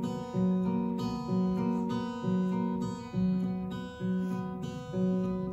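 Acoustic guitar playing chords in an instrumental passage, about one chord a second, each ringing and fading before the next.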